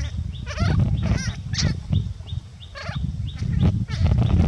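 Baby macaque calling: a series of short, high-pitched squealing cries, typical of a young monkey calling for its mother.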